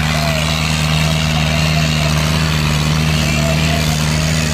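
Diesel tractor engine running loud and steady at constant speed, under heavy load as it drags a weighted harrow frame through deep sand.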